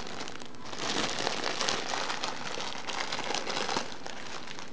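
Clear plastic wrapping crinkling as a bagged hair bundle is handled and unwrapped: a continuous run of small crackles and rustles, a little louder about a second in and again past three seconds.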